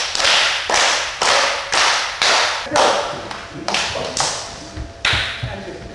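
Hand drum struck in a steady beat, about two sharp strokes a second, each ringing briefly; the beat stops about five seconds in.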